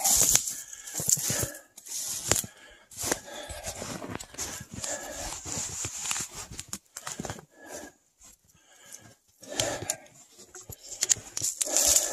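Footsteps crunching through snow with brush and twigs rustling against clothing, in irregular steps about a second apart.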